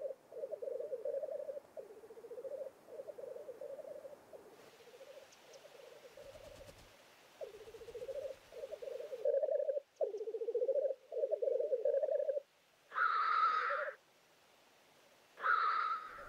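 Displaying male black grouse at the lek: a run of low, bubbling, cooing song phrases repeated one after another, then two louder hissing calls near the end.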